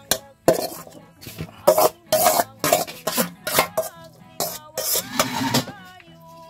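Metal spoon scraping and clinking against a metal plate as wet chopped food is scooped off into a plastic bowl: a quick run of short scrapes, about two a second.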